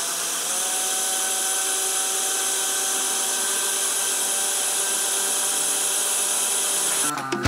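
Countertop blender motor running steadily at speed, blending frozen beet, apple and banana into a smoothie, with a steady whine over the churning; it cuts off about seven seconds in.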